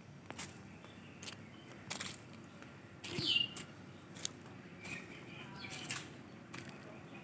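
A bird gives a short falling call about three seconds in, the loudest sound, with fainter calls a couple of seconds later, over a steady low background and scattered sharp clicks.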